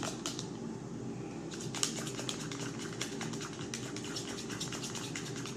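A plastic spoon stirring mayonnaise-based sauce in a jar, making a run of small clicks and scrapes over a steady low hum.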